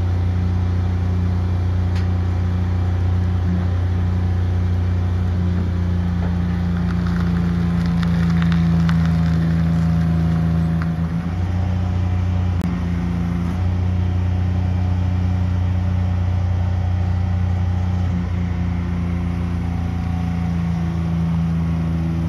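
Heavy-haul truck's diesel engine running steadily as it slowly pulls an oversize trailer, a continuous low drone that shifts in pitch briefly around the middle.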